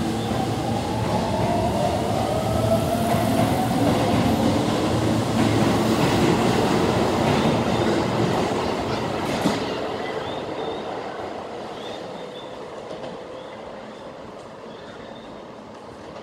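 Keio 8000 series electric train pulling out of the station. Its traction motors whine, rising in pitch as it gathers speed, over the rumble of its wheels on the rails. The sound peaks midway and then fades steadily as the last car moves off.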